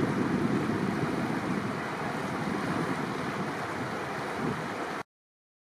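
Steady rush of wind on the microphone and water noise from a cruising boat, with a faint steady engine hum underneath. The sound cuts off abruptly about five seconds in.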